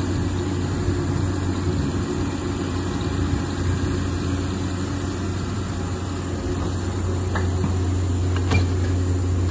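Steady low drone of an engine running at a constant speed, with no change in pitch. A couple of faint clicks sound near the end.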